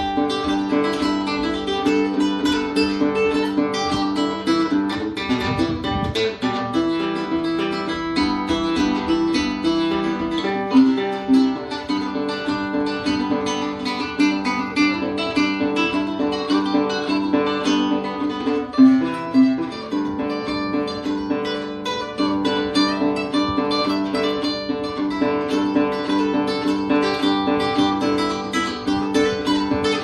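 Music played on plucked strings, an acoustic guitar, with quick picked notes and some strumming over steady lower notes.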